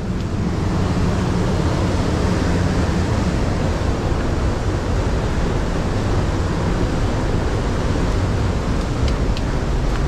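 Steady rushing of a fast-flowing river.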